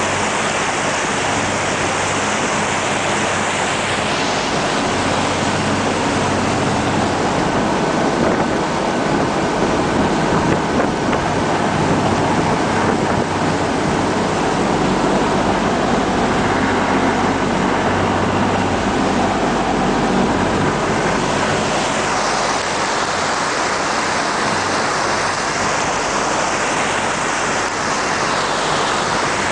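Steady loud rush of churning wake water behind a waterjet-driven CityCat river ferry running at speed. The low hum of its engines sits underneath, with wind buffeting the microphone.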